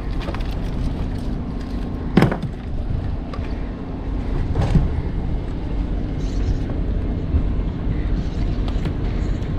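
Steady low engine drone with a faint constant hum, broken by two sharp knocks, about two seconds in and again about four and a half seconds in.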